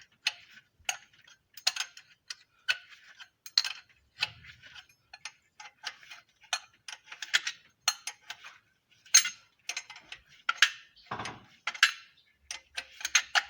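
Irregular light metallic clicks and taps from hand tools working around the diesel engine's injectors and fuel lines, about one or two a second, with a dull thud near the end.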